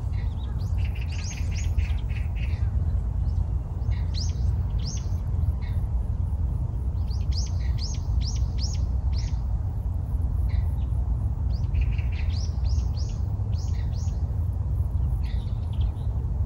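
Small birds chirping in scattered clusters of quick, high, downward-sweeping notes over a steady low rumble.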